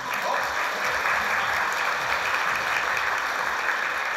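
An audience applauding: steady, dense clapping with no break.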